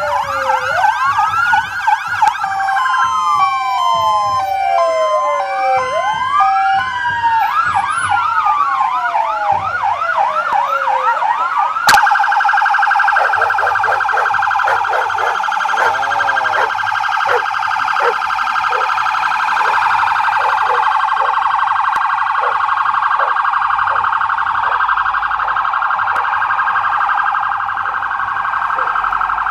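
Several police car sirens sounding at once as a procession of squad cars drives past, their rising and falling wails and stepped two-tone patterns overlapping. A sharp click comes about twelve seconds in, and after it the sirens merge into a dense, continuous wall of many sirens.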